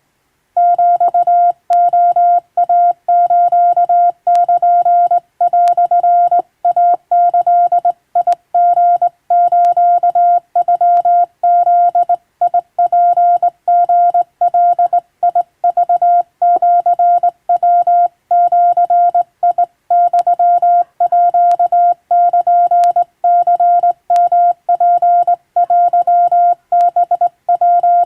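Hand-keyed Japanese (wabun) Morse code: a single steady beep switched on and off in dots and dashes, starting about half a second in.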